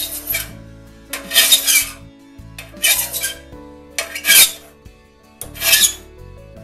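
A hand file rasping across a crosscut saw's raker tooth and the hardened plate of a raker depth gauge. Five slow strokes come about a second and a half apart as the raker is dressed down to depth.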